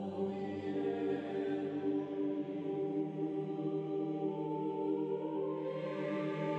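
Slow background music in a choral, chant-like style, made of long held chords, with a new higher note coming in about four seconds in.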